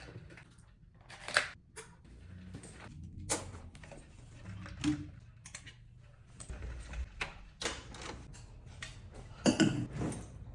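Scattered light knocks and clicks of small objects being handled, a second or two apart, the sharpest about a second and a half in and a small cluster near the end.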